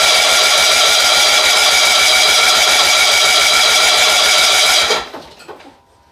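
Two-cylinder engine of a John Deere 70 skid-steer cranking on its starter with a fast, even beat but not catching, then stopping about five seconds in and spinning down. The engine is flooded with fuel.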